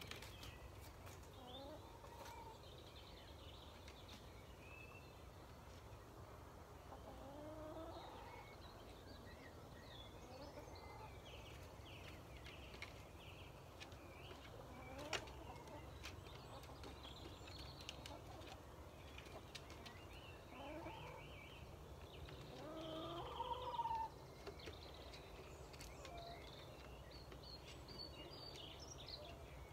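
Chickens settling to roost, giving scattered soft gliding calls that bunch together and grow louder near the end, over fainter high chirping and a low steady background rumble.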